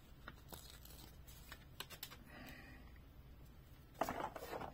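Faint handling sounds: a thin sticker being peeled off its paper backing sheet, with small clicks and crinkles. Near the end comes a louder scuff of hands against a plastic toy truck.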